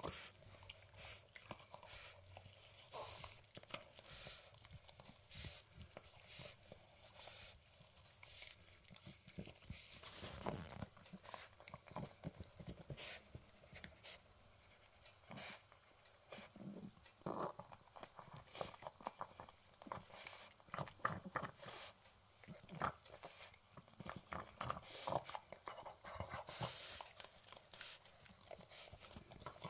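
Two-month-old poodle puppy chewing and gnawing a raw chicken foot: faint, irregular crunches and clicks of teeth on skin and bone, coming in clusters of quicker chewing.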